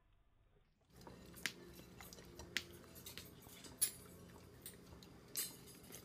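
Vizsla licking and chewing sticky peanut butter: wet mouth clicks and smacks about once a second over a low steady hum, starting about a second in.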